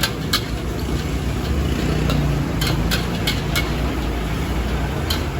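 Sharp metal clinks of a spatula striking a wok, four in quick succession about two and a half to three and a half seconds in and a few single ones around them, over a steady low rumble.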